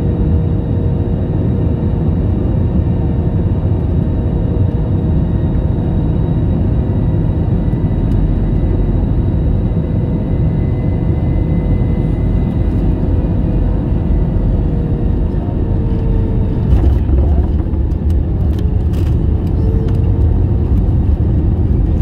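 Airliner cabin noise: a steady low rumble from the engines and airflow, with faint steady whine tones over it. About 17 seconds in the rumble swells briefly and a few sharp clicks or rattles come through.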